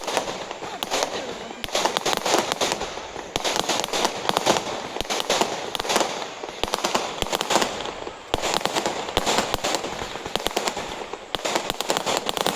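Fireworks going off: a dense run of rapid crackles and pops, easing briefly twice before picking up again.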